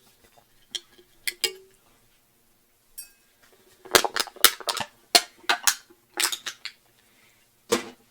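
Hard objects being handled and knocked against a hard surface. A few light clicks, then a quick run of sharp knocks and clinks, with one last knock near the end.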